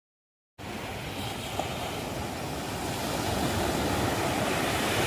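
Ocean surf washing on the shore with wind buffeting the microphone, a steady rushing noise that cuts in abruptly about half a second in and swells slightly partway through.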